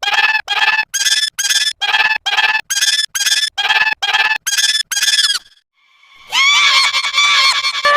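Edited cartoon-style sound effect: a run of about twelve short, high-pitched squeaks, about two a second. After a brief pause, a continuous, busier high-pitched sound starts near the end.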